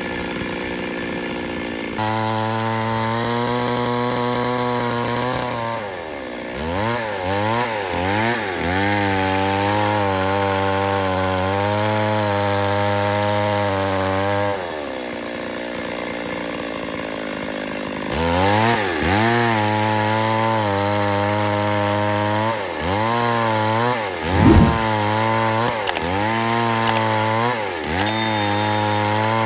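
Two-stroke chainsaw running hard while cutting wood, its pitch holding steady, then dipping and rising again over and over as the throttle is worked. It eases off to a quieter, lower run for a few seconds around the middle before revving back up.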